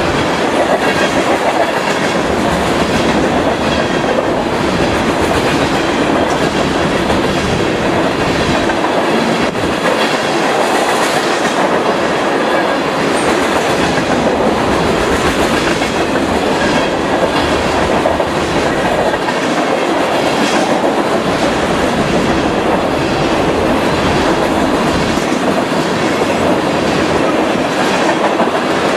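Freight train of tank cars rolling past, a loud, steady rumble of steel wheels on rail with the clickety-clack of wheels over rail joints.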